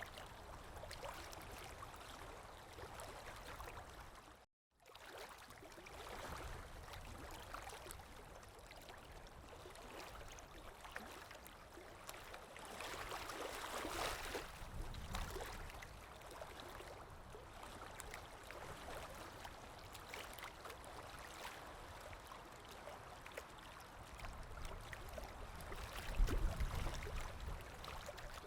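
Sea waves washing in and out, a steady surf noise that swells with one wave near the middle and a low rumble near the end. The sound cuts out completely for a fraction of a second a little over four seconds in.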